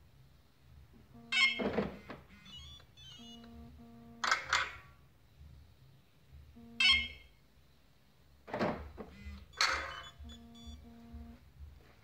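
Car central-locking actuators clunking five times as the doors are locked and unlocked from the Pandora alarm app, with short low beeps, mostly in pairs, between the clunks.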